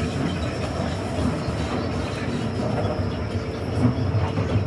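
Inside a moving Bangkok BTS Skytrain car: the steady running rumble of the train on the elevated track, with a faint high steady tone over it.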